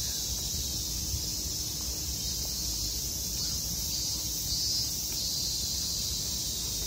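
A chorus of cicadas buzzing in the trees: a steady high-pitched drone, with a low rumble beneath.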